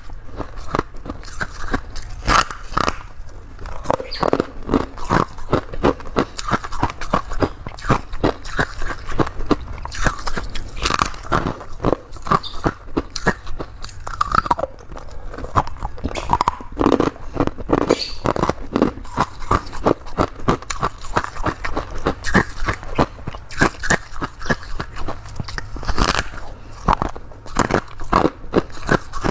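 A person biting into and chewing crunchy freezer frost grown with a humidifier, in a fast run of crisp crunches with only short pauses between bites.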